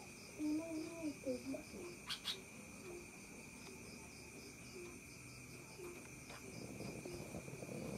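Crickets trilling steadily. A faint voice-like warble comes early, then soft low notes repeat about twice a second.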